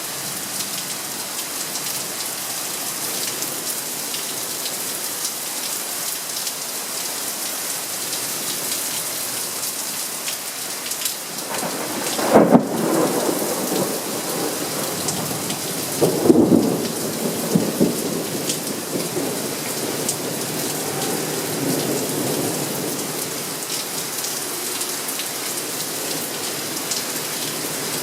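Steady rain falling with thunder: a sudden thunderclap about twelve seconds in, a second about four seconds later, then rolling rumble that fades out.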